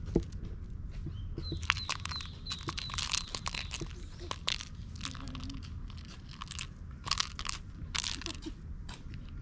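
Irregular crinkling and crackling clicks from a feathered cat teaser toy being waved and batted at by a cat.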